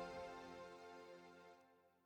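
Background music with held notes, fading out to silence.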